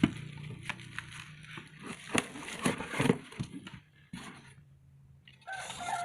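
Irregular clicks, taps and rustles of a watch box and its packaging being handled during unboxing. Near the end a drawn-out whine with a slightly falling pitch starts up.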